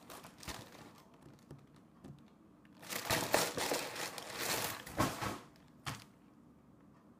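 Plastic packaging crinkling and rustling as it is handled and opened, in a long stretch about three seconds in and a short burst near the end, after a few light handling clicks.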